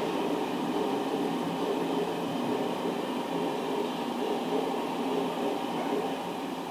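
Freight train of flat wagons loaded with vans rolling past: a steady running noise of wheels on the rails.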